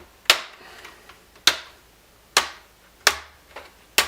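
Plastic clips of a laptop's LCD bezel snapping loose as it is pried off: a series of sharp plastic snaps, about one a second.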